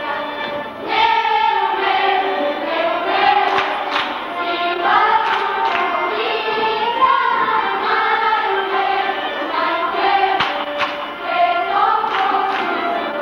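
A group of children singing a Bulgarian folk dance song together, with a few sharp percussive hits over the singing.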